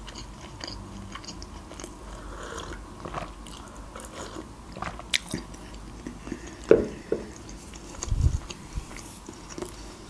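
Close-miked mouth sounds of chewing and swallowing food: soft wet clicks and ticks, with a couple of sharper clicks and a low thump later on.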